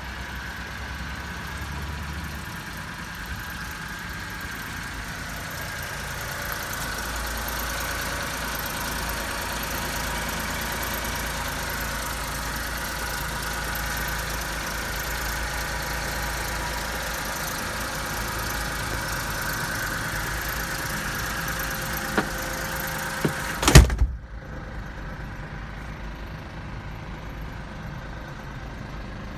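Mitsubishi Minicab kei truck engine idling steadily. A few knocks come near the end, then one loud slam.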